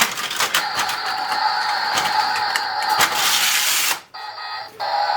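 Plastic toy parking garage working: its mechanism clicks and whirs while a steady electronic tone sounds from its sound-effects unit. About three seconds in there is a loud hiss lasting a second, then a short dip in sound.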